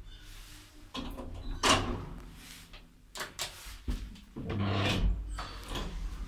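ZREMB elevator's sliding doors and mechanism making a series of clunks and short sliding noises over a steady low hum. The loudest knock comes about a second and a half in.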